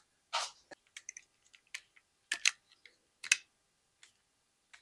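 Irregular light clicks and clacks of small hardware being handled and fitted onto a compound bow, with a few sharper clacks about half a second, two and a half and three and a quarter seconds in.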